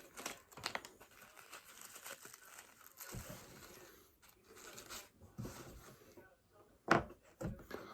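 Packaging being handled and opened: scattered crinkling and tearing rustles, with a couple of light knocks about three and seven seconds in.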